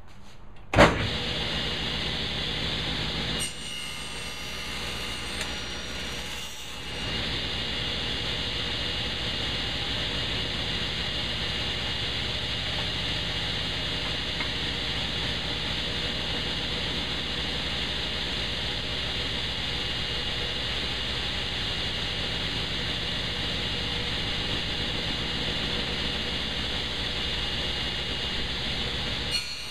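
Table saw switched on about a second in, its motor and blade then running steadily. The sound dips for a few seconds early on, then stays steady until it drops just before the end.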